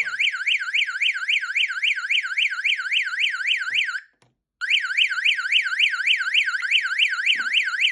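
Electronic alarm siren warbling, its pitch sweeping rapidly up and down about four to five times a second, used as the test sound for a sound insulation test. It cuts out briefly about four seconds in, then resumes.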